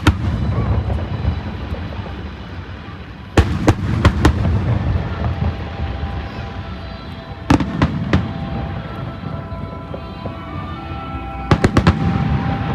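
Aerial fireworks shells bursting: clusters of sharp bangs about three and a half, seven and a half and eleven and a half seconds in, with a continuous low rumble of more bursts between them. Music plays underneath.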